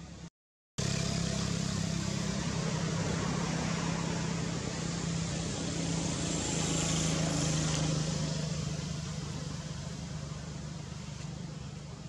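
A motor vehicle's engine running, a steady low drone with a wide noisy hiss over it, which cuts in after a brief silence, swells to its loudest about eight seconds in and then slowly fades.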